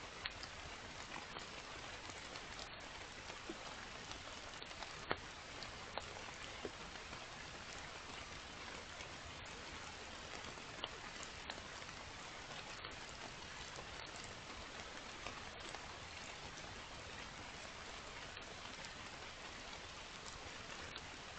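Heavy rain falling steadily, a dense hiss with occasional louder drops ticking sharply, the loudest about five seconds in.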